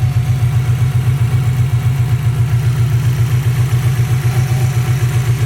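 Subaru WRX's turbocharged flat-four engine idling roughly, its low exhaust note pulsing unevenly: the engine is misfiring.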